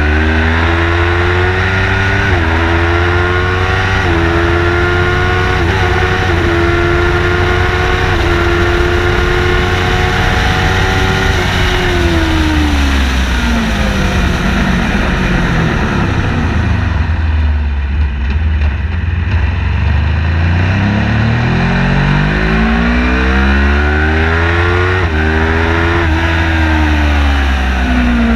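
Car engine on a race-track lap, accelerating hard through several upshifts, each one a sudden small drop in pitch. The engine speed then falls steadily for about six seconds as the car slows for a corner, before it accelerates again through more upshifts, all over a constant deep road and wind rumble.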